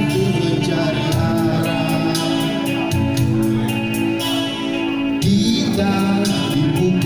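A man singing into a microphone over instrumental accompaniment with a steady beat, amplified through a sound system.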